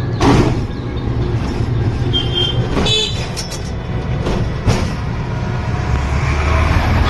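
Riding in an electric rickshaw: a steady low hum of the ride over the street, with the open body knocking and rattling a few times, and a brief high horn beep around two to three seconds in.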